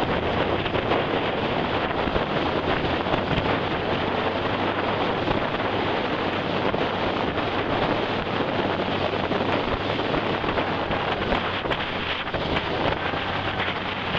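Steady rush of wind buffeting the microphone on a moving motorboat, mixed with churning wake water and the boat engine's low, steady hum underneath.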